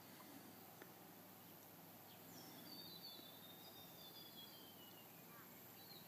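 Near silence: faint outdoor ambience with a few thin, high, falling calls from distant birds.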